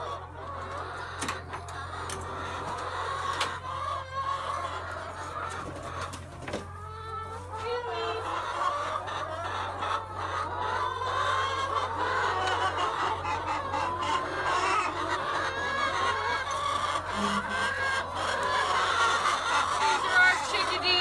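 A flock of chickens clucking, many short calls overlapping, eager for treats, with scattered sharp clicks; the clucking grows louder through the stretch.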